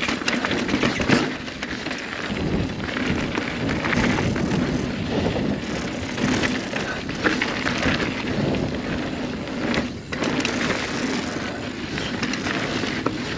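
Single-speed steel hardtail mountain bike, a Kona Honzo ST 29er, riding fast over rough dirt trail: steady tyre roar with frequent clattering knocks from the bike over the bumps, easing briefly about ten seconds in.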